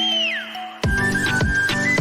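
Background music: held notes with a high gliding whistle-like line, then a steady beat with deep kick drums comes in just under a second in.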